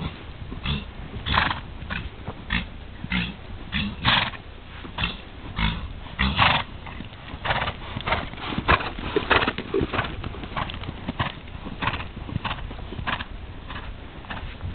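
Horse cantering on a sand arena under a rider: rhythmic hoofbeats with the horse's breath blowing out in time with its stride, about two bursts a second.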